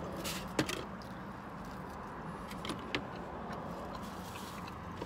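A person chewing a bite of buttered bread inside a car, with a couple of sharp mouth clicks about half a second in and near three seconds, over the cabin's steady low hum.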